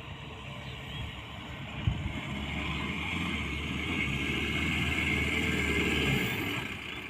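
Mahindra four-wheeler's engine working under load as it drives through sand, growing louder from about two seconds in and falling away near the end. A short knock sounds about two seconds in.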